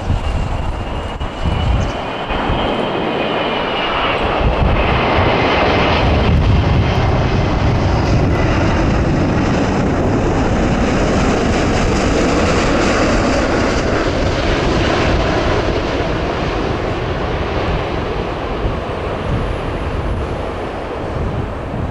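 Airbus A380's four jet engines on final approach as it flies past, a steady loud roar with a high whine that falls in pitch over the first several seconds.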